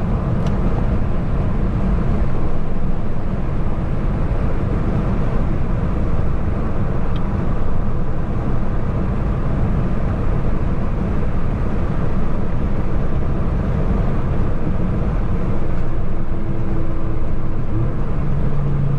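Cabin noise of a four-cylinder car driving at steady speed with the window rolled up: engine and road noise with no sudden events. A steady low hum comes in near the end.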